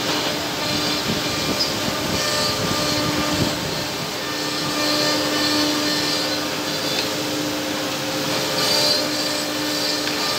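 Woodmaster double-end CNC tenoning machine running: its router spindles give a steady whine over a broad mechanical hum. The whine swells and eases a few times.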